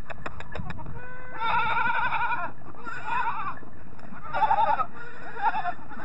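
Goats bleating: about four wavering bleats at different pitches, after a quick run of clicks in the first second.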